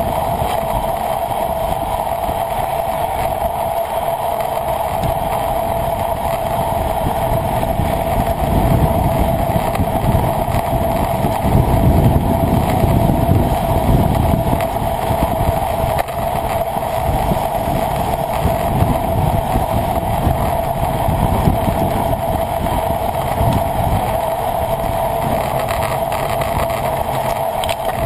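Wind buffeting the microphone of a camera carried through the air at speed, over a steady hum, with the rumble swelling louder about halfway through.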